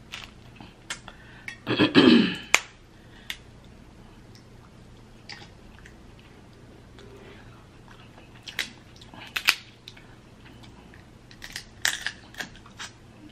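Cooked Dungeness crab leg shells cracked and snapped apart by hand, in a series of sharp separate cracks, with chewing of the crab meat. A short vocal sound from the eater about two seconds in is the loudest moment.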